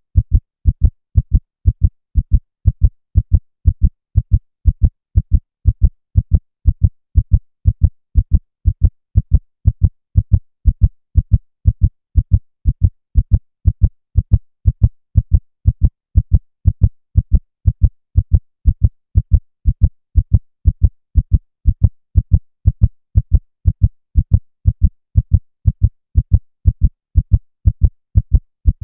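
Heartbeat: steady double thumps (lub-dub), deep in pitch, a little over one beat a second with an even rhythm.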